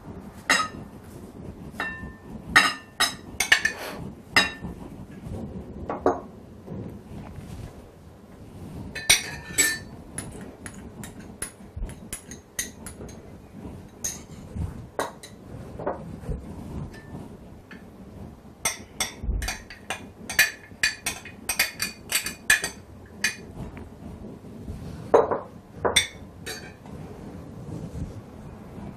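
A metal spoon clinking and tapping against glass and ceramic dishes while minced meat and garlic are scraped into a glass mixing bowl, in several bunches of sharp, ringing clinks.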